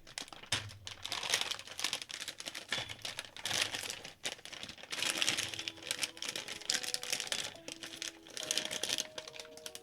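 Small metal screws and bolts clicking and rattling as they are handled, with a plastic parts bag crinkling.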